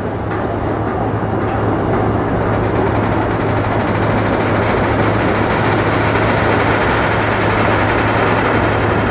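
Loud, steady mechanical rumble with a constant low hum underneath, growing a little louder over the first two seconds.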